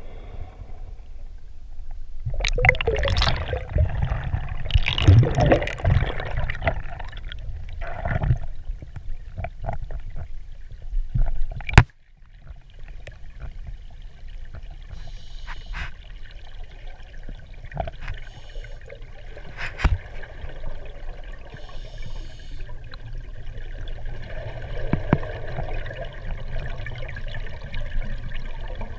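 Muffled underwater water noise: rushing and gurgling water, loudest for several seconds near the start, then a quieter steady hiss with a few faint short bursts. A single sharp click about halfway through.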